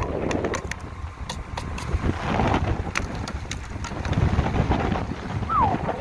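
Blizzard wind buffeting the microphone as a steady low noise, with sharp clicks and taps scattered through and a short falling squeak near the end.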